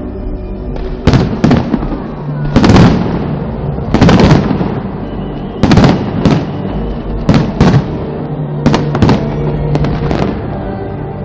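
Fireworks going off in a rapid series of loud sharp bangs, about a dozen in ten seconds, several coming in close pairs.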